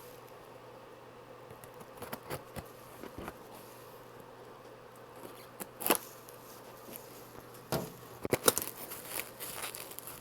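A cardboard shipping box being handled and opened: scattered light taps and scrapes, a sharper knock about six seconds in, and a quick run of knocks near the end.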